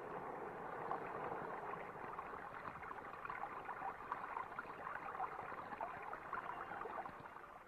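Irrigation water rushing and splashing, a steady gush that fades out near the end.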